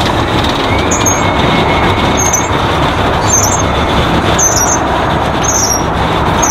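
Heavy diesel semi truck running as it maneuvers, a steady low rumble with a wide noisy wash over it. A short high chirp repeats about once a second over the engine.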